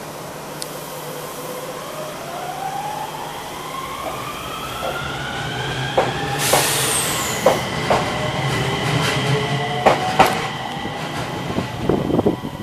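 Enshu Railway 2000-series electric train pulling away: its traction motors whine in several tones that rise together as it accelerates, then level off. Sharp clacks from the wheels crossing rail joints follow, and a quick run of them near the end.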